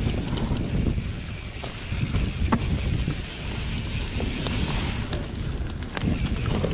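Mountain bike ridden fast over a dirt trail: wind buffeting the microphone and tyres rolling over dirt and leaves, with scattered clicks and rattles from the bike.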